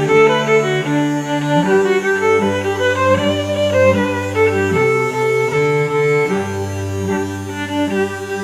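Background music of bowed strings, violin and cello playing sustained notes with slowly changing chords.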